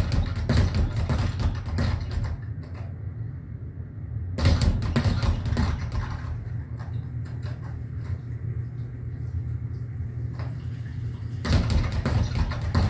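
Small child punching a speed bag, the bag rattling against its rebound platform in quick clusters of hits. There are three main spells: one right at the start, one about four and a half seconds in, and one near the end, with scattered hits between them and a steady low hum underneath.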